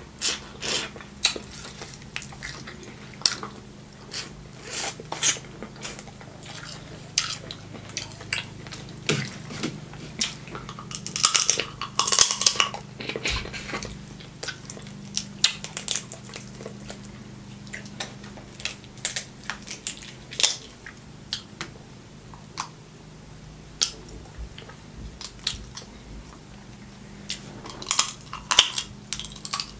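Snow crab leg shells being cracked and picked apart by hand, making sharp, irregular clicks and snaps, busiest about a third of the way in and again near the end, with chewing between them. A faint steady low hum sits underneath.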